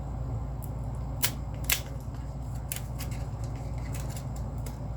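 Foil Pokémon booster pack packaging crinkling and crackling as it is torn open and handled: a string of sharp crackles, loudest twice in the first two seconds, over a steady low hum.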